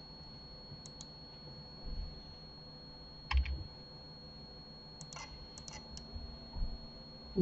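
Computer keyboard keystrokes and mouse clicks, few and scattered: a single click about a second in, a louder knock near three and a half seconds, and a quick run of clicks between five and six seconds, over a faint steady high whine.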